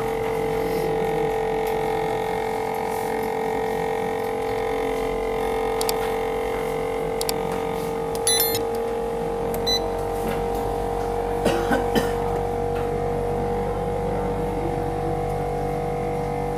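Steady electric hum of a phone-screen separator machine running, most likely its vacuum pump holding the screen to the heated plate. It is an even drone of several fixed tones, with a few short clicks about halfway through.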